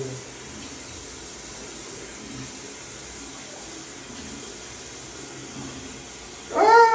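Tap water running steadily into a bathroom sink. About six and a half seconds in, a loud high-pitched voice breaks in, rising then falling.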